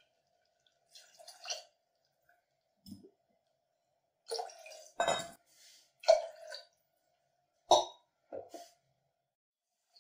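Water poured from a steel cup into a pressure cooker of cooked dal, splashing in several short pours.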